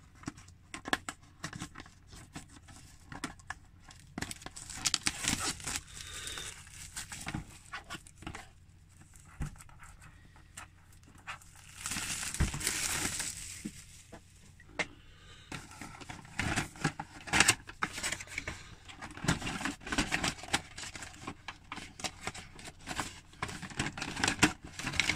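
Cellophane shrink-wrap being peeled and torn off a cardboard kit box, with irregular crinkling, crackling and small clicks as hands work the wrapper and handle the box. A louder stretch of crinkling comes about halfway through.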